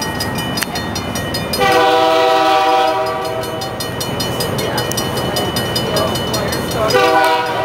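Locomotive air horn sounding a steady multi-note chord for a little over a second, about two seconds in, then starting a second blast near the end, sounded for a level crossing. Between the blasts there is a steady rumble of the approaching train.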